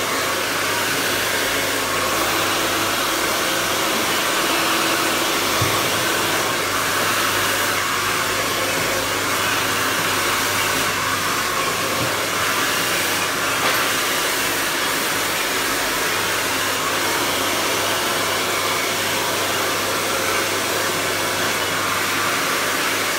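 Hair dryer running steadily at one speed, blowing air during a blow-dry.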